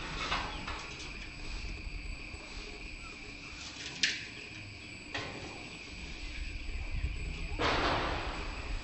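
Steady, high insect chirring, with a sharp click about four seconds in and a louder, noisy rasp lasting about a second near the end.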